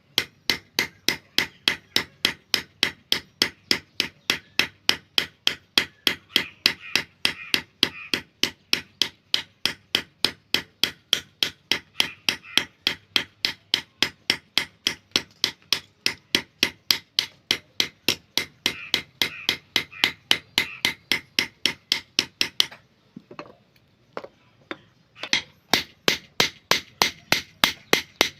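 Hammer striking the metal blade of a crop-cutting hand tool under repair, in steady rapid blows about three a second. About three-quarters of the way in the blows pause for roughly two seconds, with a few lighter taps, then resume.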